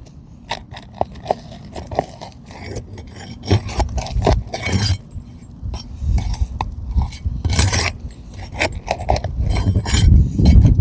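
A metal tool scraping and clinking against roof shingles and nails while shingles are unsealed and their nails pulled. Scattered sharp clicks, with a few longer scrapes.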